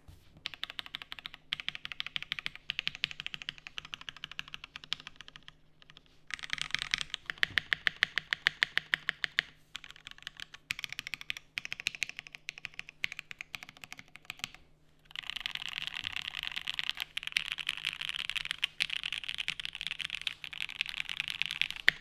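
Custom 7v mechanical keyboard with lubed and filmed Alpaca V2 linear switches, a polycarbonate plate and GMK keycaps, being typed on in bursts of keystrokes with brief pauses. The last several seconds are a fast, nearly continuous run of typing.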